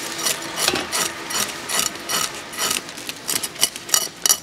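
Climbing perch being scaled by scraping it against the edge of a curved boti blade: a quick, uneven run of rasping scrapes, about two or three a second.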